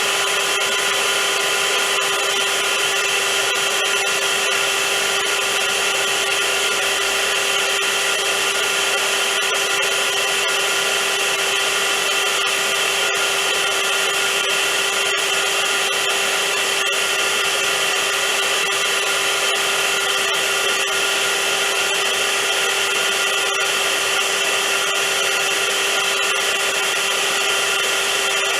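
Vacuum cleaner running steadily at full speed: a loud, even whoosh of air with a steady motor hum.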